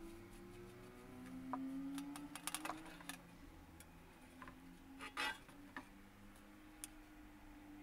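Faint scattered clicks and crackles of hands handling a freshly spray-painted metal shovel blade and peeling and crumpling the painted masking tape off it, with one louder crackle about five seconds in.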